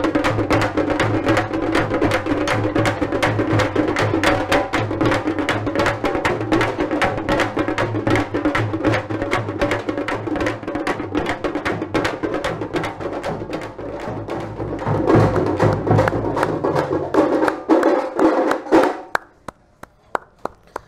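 Parai frame drums beaten with sticks in a fast, dense ensemble rhythm over a large double-headed barrel drum. The playing stops abruptly near the end, leaving a few scattered strokes.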